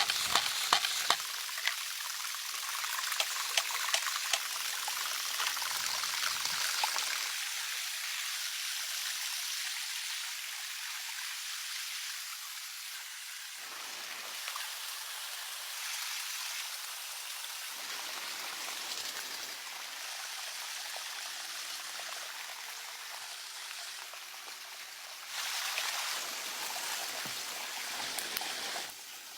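Running water: a steady rushing hiss, with scattered crackles in the first few seconds, that gets louder for a few seconds near the end.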